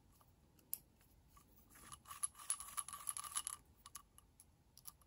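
Hex driver turning small screws into an RC car's differential case: faint metallic ticks and scraping, a single click about a second in, then a run of quick ticks lasting a second and a half or so.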